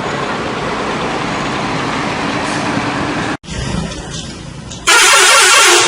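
Bus passing on a road, its engine and road noise running loud and steady until a sudden cut. Near the end a loud blast of air noise bursts in and holds for about a second.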